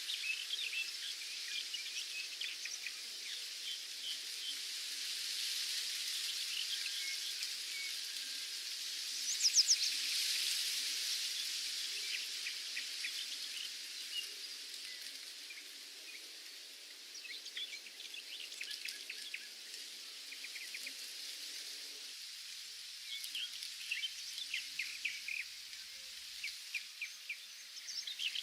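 Nature ambience: many small birds chirping and twittering over a steady high hiss, with a louder burst of quick chirps about nine seconds in.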